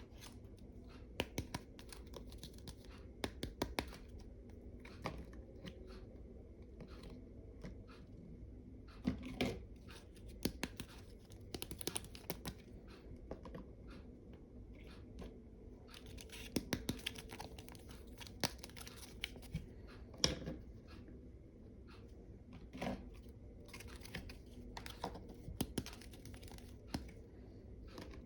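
Small objects being handled close to the microphone: irregular clicks and taps with short scraping and rustling, over a low steady hum.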